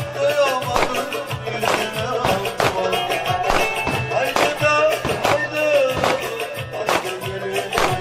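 Live Turkish folk dance music, with a strong beat about once a second under a wavering melody.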